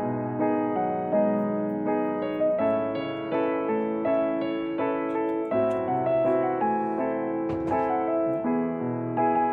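Background piano music: a steady run of single notes and chords with no break.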